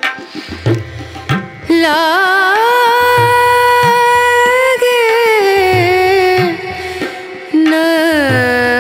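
Background music: an Indian song, with a singer holding long, wavering notes over a regular drum beat. The voice drops out for about a second about two-thirds of the way through, then comes back.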